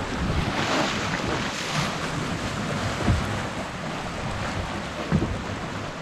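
Water rushing and splashing along the hull of a Mini 6.50 racing sailboat under way, with wind buffeting the microphone. The wash swells louder twice in the first two seconds, and a couple of low thumps come later as the hull meets the waves.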